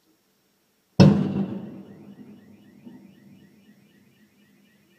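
A single loud explosive bang from a car on fire, echoing and dying away over about three seconds. Just after it, a fast high-pitched repeating chirp starts up and keeps going.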